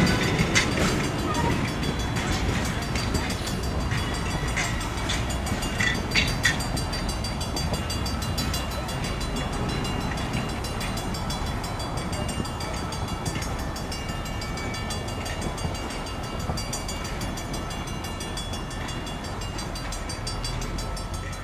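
Passenger train pulled by steam locomotive New Haven #3025 rolling away on the track, wheels clicking now and then, with the sound slowly fading as it leaves. A few sharper clicks come about four to six seconds in.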